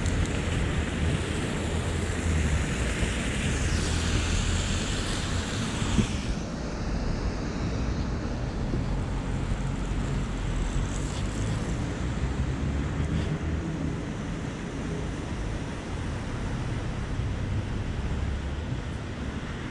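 Rainy city street ambience: a steady low traffic rumble with the hiss of tyres on wet road. The hiss drops away suddenly about six seconds in.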